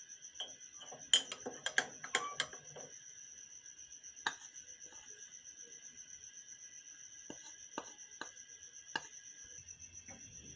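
A metal spoon clinking against a small ceramic jug and bowl as cornflour is stirred into milk: a quick run of clinks in the first few seconds, then single taps about a second apart, over a faint steady high whine.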